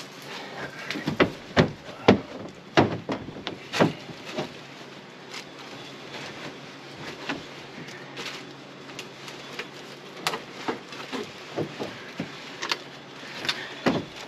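Loose car parts being moved and handled in a pickup bed with a plastic bed liner: irregular knocks, clunks and scrapes, thickest in the first few seconds and scattered again later.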